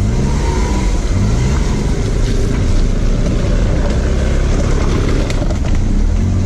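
Renault Kwid driving over a rough, broken road, heard from inside the car: a steady rumble of engine and tyres with a few light knocks and rattles.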